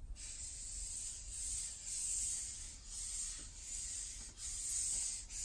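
Felt-tip marker drawing on flip-chart paper: a run of short rubbing strokes, each under a second and about a second apart.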